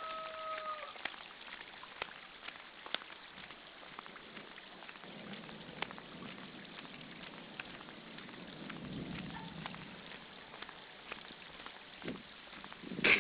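Rain falling on a paved surface: an even hiss with many separate drop ticks. A rooster's crow trails off in the first second, and a single sharp knock comes right at the end.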